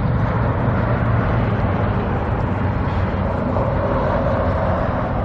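Steady rumble of motor vehicle traffic, with a low engine hum that eases off after the first couple of seconds and a higher engine tone coming up about three seconds in.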